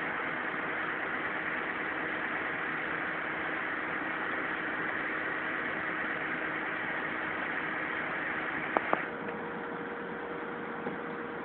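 Kato truck crane's diesel engine running steadily at idle. About nine seconds in come two sharp clicks, after which the upper hiss eases and a steady hum takes over.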